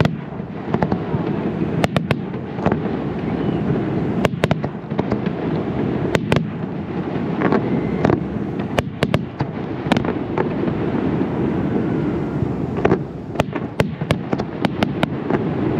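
Professional aerial fireworks display: a continuous rumble of shell bursts overlapped by many sharp cracks and pops, coming in clusters.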